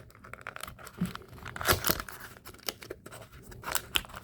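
Packaging being torn open and crinkled by hand: irregular crackling and tearing as a small advent-calendar compartment and an individually sealed cookie wrapper are opened, loudest a little under two seconds in.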